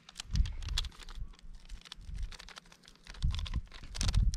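Rapid crinkling and clicking of a small plastic seasoning sachet being handled and torn open, with a few dull low thumps.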